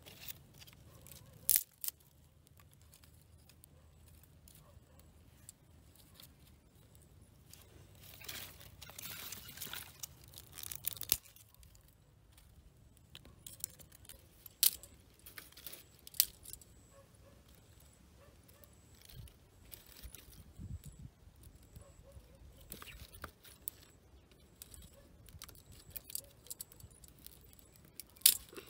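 Dry twigs and sticks being handled and snapped while building a small fire on charcoal: scattered sharp snaps and clicks, with a stretch of rustling about eight to eleven seconds in.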